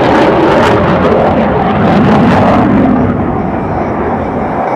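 F-15E Strike Eagle's twin turbofan engines in afterburner: a loud, rushing jet roar as the fighter maneuvers. About three seconds in, the roar loses its hiss and softens a little.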